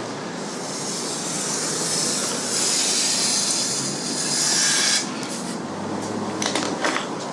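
Aerosol can of spray adhesive hissing in one continuous spray for about five seconds, growing louder, then cutting off sharply. A few light clicks and taps follow near the end.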